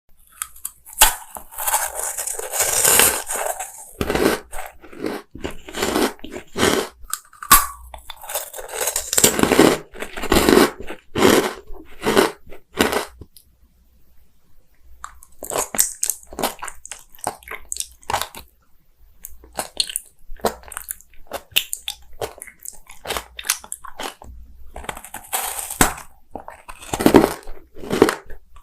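Close-up eating sounds: crunchy bites and chewing, with irregular crackling crunches and a short lull about halfway through.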